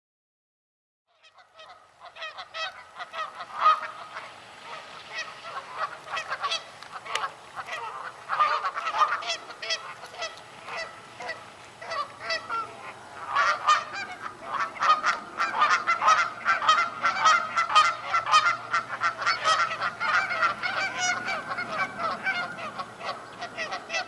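A large flock of geese honking, many calls overlapping. The calls start about a second and a half in and grow denser and louder about halfway through.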